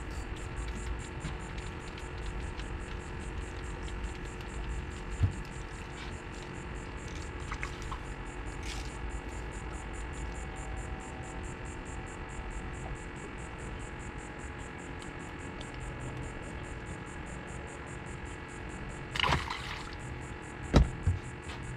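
A steady hum with several fixed tones under it, from an unseen source. A short rustle comes about nineteen seconds in, then two sharp knocks near the end.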